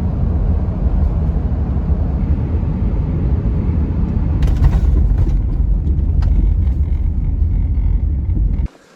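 Car or truck driving: a steady low road and engine rumble heard from inside the cabin, cutting off abruptly near the end.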